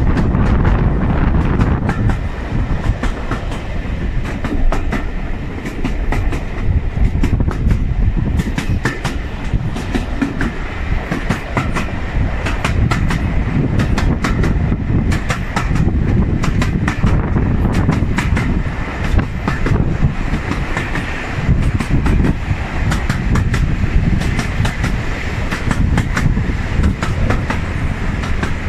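Heritage railway coach running along the line: a steady rumble of the wheels with clickety-clack over the rail joints, heard from an open carriage window with wind on the microphone.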